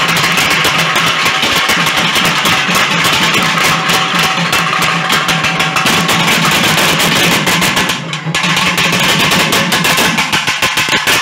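A group of double-headed barrel drums beaten fast and loud with sticks in a dense, driving festival rhythm. The drumming drops out for a moment about eight seconds in, then resumes with more spaced strokes near the end.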